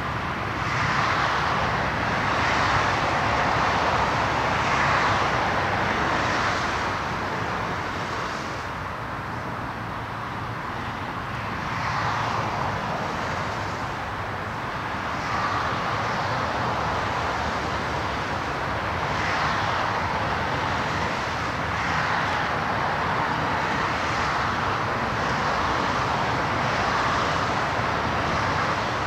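Road traffic noise: a steady rush of passing vehicles that swells and fades every few seconds as cars go by.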